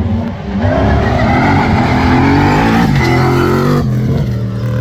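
Competition safari off-road racer's engine revving hard, its pitch climbing over the first second and holding high, then dropping to a lower note about three seconds in.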